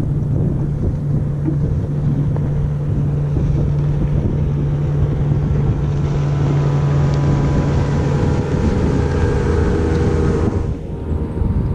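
Wind buffeting the microphone over a steady low motor hum from a fishing boat. About halfway through, a higher hiss joins and then cuts off suddenly near the end.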